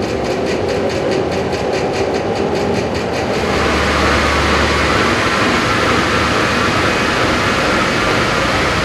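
Steady rushing of air in a large wind tunnel running a train-model drag test, pulsing about four times a second at first. About three and a half seconds in, it turns into a steadier, brighter rushing as the moving ground-plane belt comes into view running under the model.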